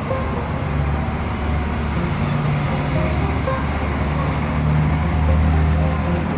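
Sightseeing bus running through city traffic, a steady low engine hum with road noise, and thin high-pitched squeals for a few seconds from about three seconds in.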